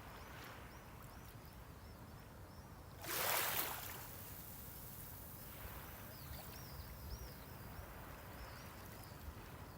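Sea wave breaking and washing up the shore about three seconds in, the loudest sound, over a steady low rumble of surf. Faint high bird chirps repeat before and after it.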